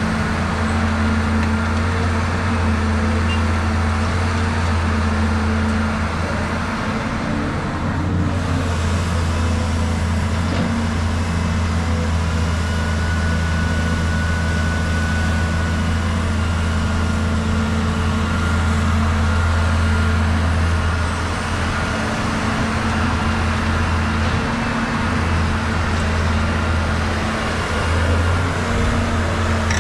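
Diesel engine of a Caterpillar 320 hydraulic excavator running steadily under working load as it digs and swings, a continuous low drone with a faint thin whine above it.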